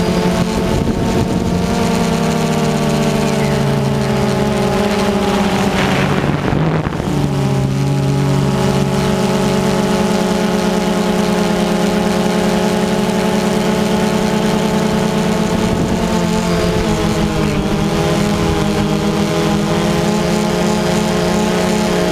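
DJI Phantom 2 quadcopter's motors and propellers humming steadily, heard from the camera on the drone. The pitch shifts as the motors change speed, with a brief rush of noise about six and a half seconds in and a dip in pitch around seventeen seconds.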